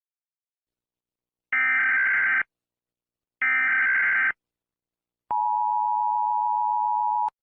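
Emergency Alert System tones: two separate bursts of warbling digital data tones, each about a second long, then a steady two-tone attention signal lasting about two seconds that cuts off with a click near the end.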